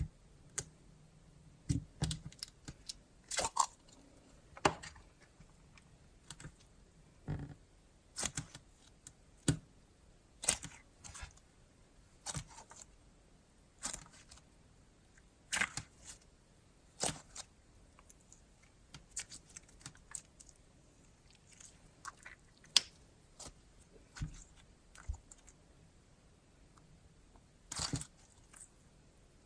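Hands squishing and poking a stiff, fridge-cold slime, giving irregular sharp clicks and pops at uneven intervals, a few of them loud.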